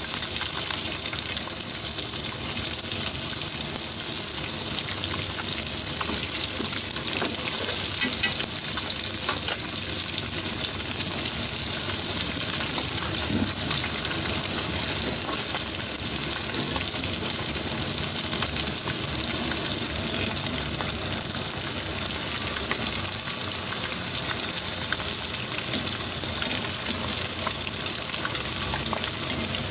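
Black sea bream trimmings deep-frying in oil in a frying pan: a steady, even sizzle.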